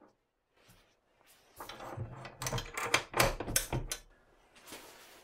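A cast-iron Record No. 4 bench vise on its swivel base being tilted over on a steel hinge base: quiet at first, then a run of irregular metal knocks and clunks from about a second and a half in, and a short hiss near the end.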